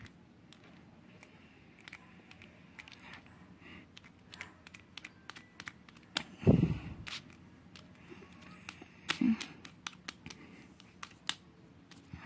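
Homemade glue-and-detergent slime being squeezed and pulled by hand, giving many small sticky clicks and pops. A louder low thump comes about six and a half seconds in and a smaller one a little after nine seconds.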